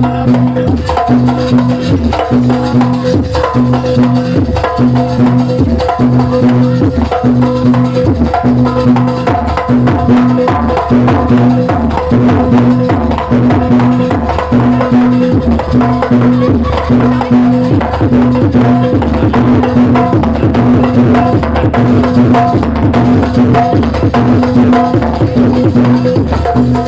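Live jaranan ensemble music: dense hand-drum strokes over a low pitched figure that repeats at a steady beat, with a held higher tone above.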